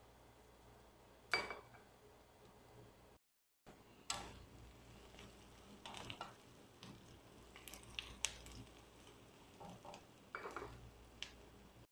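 Wooden spatula stirring and scraping diced onions in a nonstick frying pan, with scattered light knocks against the pan, the loudest about a second and a half in and about four seconds in. Under it, the faint sizzle of the onions frying as they brown.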